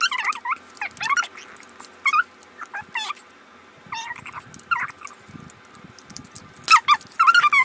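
An animal's short, high-pitched squeaky calls, repeated in quick irregular runs with a pause a little past the middle.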